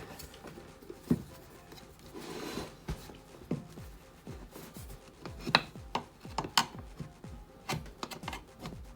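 Rubber lawnmower tire being pried off its wheel rim with tire tools: scattered knocks and clicks of the tools against the rim, with a stretch of rubber rubbing and scraping about two seconds in.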